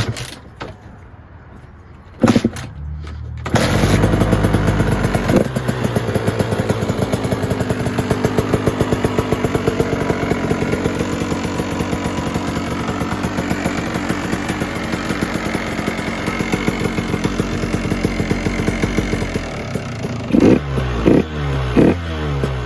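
KTM 150 SX two-stroke single-cylinder engine with a Doma expansion chamber and silencer: a knock about two seconds in, then the engine starts about a second later and runs with a fast, even beat, with several sharp throttle blips near the end. The owner finds it running quite a bit rich.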